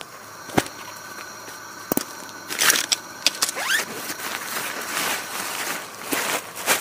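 Nylon tent bag being opened: a couple of sharp clicks, then a zipper pulled open along the bag about three seconds in, followed by nylon fabric rustling as the tent is handled.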